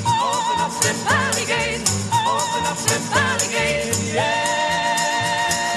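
Live folk group singing with acoustic guitars, double bass and a hand-shaken tambourine, the female lead voice with a wide vibrato. About four seconds in, the voices settle onto a long held note.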